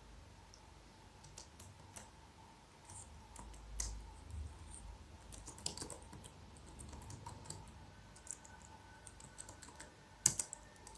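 Computer keyboard keys being tapped in soft, scattered runs of keystrokes as code is typed.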